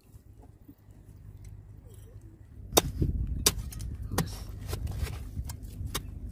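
A hoe chopping into wet, sandy soil: three sharp strikes about three to four seconds in, then lighter, quicker knocks and scrapes.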